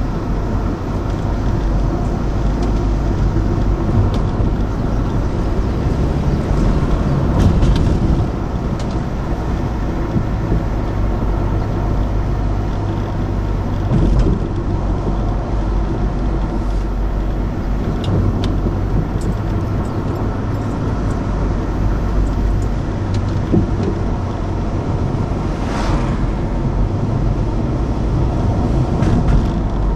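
Car driving, heard from inside the cabin: a steady rumble of engine and tyre noise, with a few brief knocks along the way.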